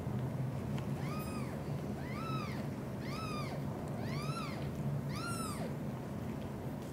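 Newborn British shorthair kittens mewing: five short, high-pitched mews, each rising then falling in pitch, about a second apart, over a steady low rumble.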